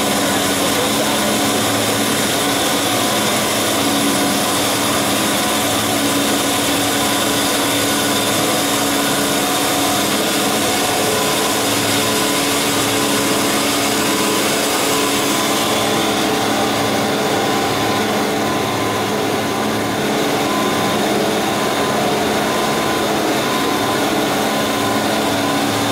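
Cosen CNC-430 bandsaw's carbide-tipped blade cutting through a 200 mm round bar of 304 stainless steel, a steady hissing cut over the hum of the saw's drive. The hiss softens about sixteen seconds in.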